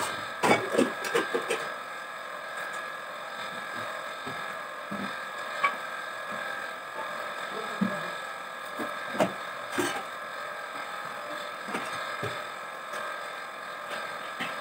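Kitchen utensils and containers being handled and set down on shelves: scattered light knocks and clatter, a quick cluster near the start and single ones later, over a steady background hum.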